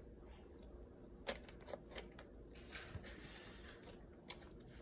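Faint handling sounds: a few light, separate clicks and some rustling as the stock is fitted onto a plastic airsoft gun.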